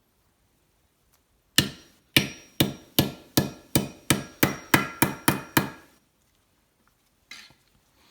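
A hammer striking a part to seat it onto a Beast Sticks climbing stick: about a dozen quick, hard blows with a short ring after each, coming a little faster as they go, then one lighter knock near the end.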